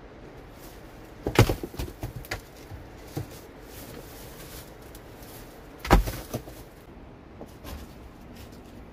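Loose rocks knocking as they are shifted by hand: two heavy knocks about four and a half seconds apart, each followed by a short run of lighter clatter.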